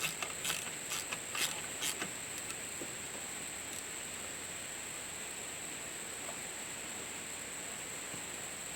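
A ratchet with a 12 mm socket clicking a handful of times in the first two seconds as it tightens the alternator adjuster to tension a new drive belt, then stopping; a steady high-pitched whine runs underneath.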